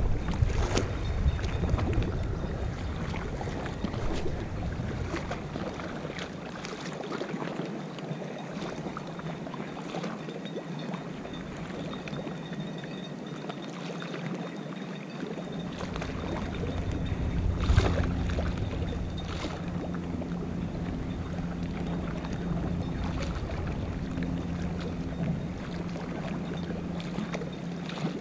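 Wind buffeting the microphone in gusts, its low rumble dying away for a while in the middle. About halfway through, a steady low hum joins in and runs on under the wind.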